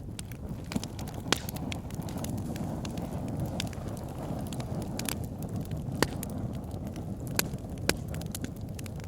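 Wood fire burning in a fireplace: a steady low rush of flames with logs crackling and popping in irregular sharp snaps, a few louder pops among them.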